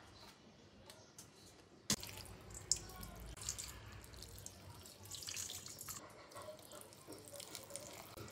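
A sharp knock about two seconds in, then water poured from a copper jug into a stainless steel bowl of dried fish, splashing steadily as the fish is covered to soak.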